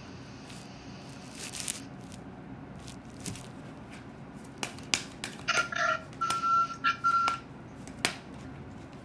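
Playing cards being shuffled and handled for a reading: scattered light clicks and short rustles, busiest in the second half. A steady beep-like tone lasts about a second, some six seconds in.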